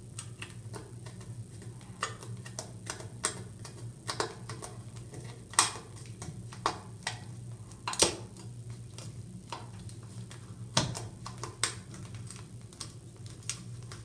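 Irregular small metallic clicks and taps of a screwdriver working the set screw under a towel bar's metal bracket, retightening it; a few clicks stand out louder. A steady low hum runs underneath.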